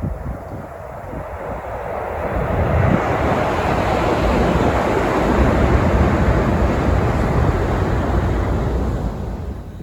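Tokaido Shinkansen train passing at speed: a rushing roar that builds over about two seconds, holds for about five, then fades near the end. Wind buffets the microphone throughout.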